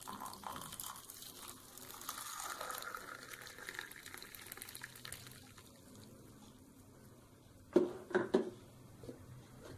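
Hot water poured from a flask into a ceramic mug over palm sugar candy and coffee powder, the pitch of the pour rising as the mug fills, then tailing off. A couple of short, louder sounds near the end.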